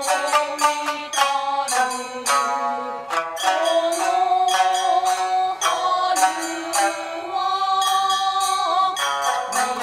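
Traditional Japanese dance accompaniment: quick plucked shamisen notes under a long held, slightly wavering melody line.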